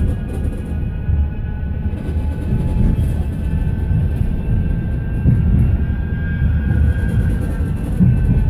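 Tram running along the line, heard from inside the passenger car: a steady low rumble of wheels on rail with a faint high whine over it.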